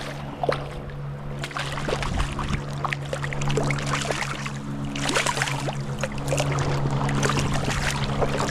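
Water running and sloshing, with many scattered sharp clicks and ticks, over steady low held tones of background music.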